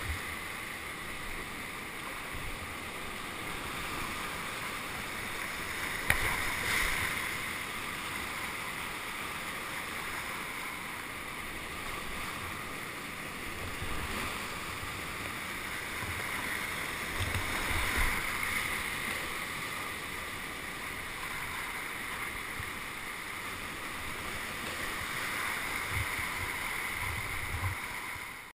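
Steady rushing of flowing whitewater, swelling and easing a little, with a brief sharp hit about six seconds in.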